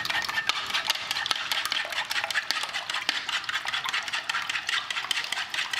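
Eggs being beaten in a bowl: a utensil clicking rapidly and continuously against the bowl's sides.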